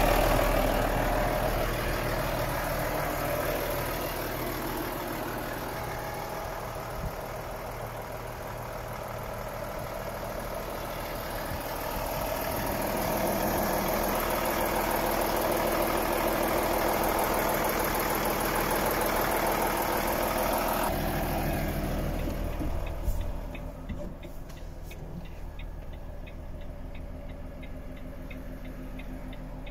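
Volvo FH 460's 13-litre straight-six diesel idling steadily, louder and quieter as it is heard from the engine bay and then the front of the truck. Near the end there is a thump, after which the engine is muffled and a steady ticking, about two a second, is heard inside the cab.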